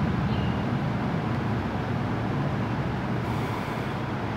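Steady low background rumble with a faint hum, no speech.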